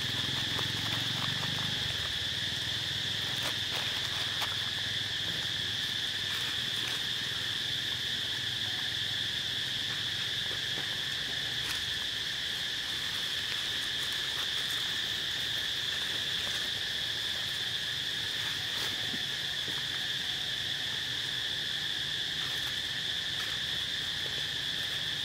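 Steady chorus of insects, a constant high-pitched drone that holds an even level throughout, with a few faint clicks.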